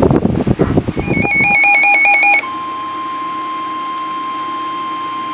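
NOAA Weather Radio starting a severe thunderstorm warning. A harsh buzzing digital data burst (the SAME header) gives way about a second in to a rapidly warbling electronic alarm beep. About two and a half seconds in, the steady 1050 Hz warning alarm tone takes over and holds.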